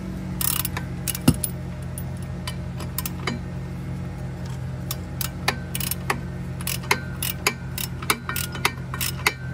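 Hand tools working the driveshaft flex-disc bolts: a wrench and ratchet give irregular metallic clicks and clinks, with one louder knock about a second in. A steady low hum runs underneath.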